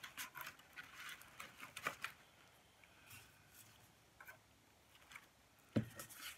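Faint handling sounds of paper and cardboard: light rustling and small taps as items are set into a cardboard box, with a sharper knock near the end.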